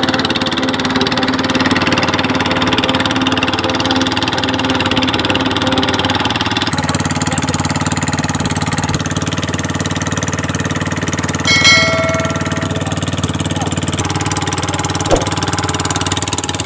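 A small engine running steadily with a fast pulsing beat, its low note stepping up about seven seconds in; a brief high-pitched sound stands out near twelve seconds.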